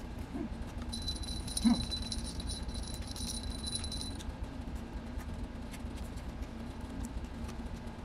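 A person eating raw leafy greens, with small wet mouth clicks of chewing and one short vocal exclamation less than two seconds in, over a steady low hum. A steady high ringing tone sounds from about one to four seconds in.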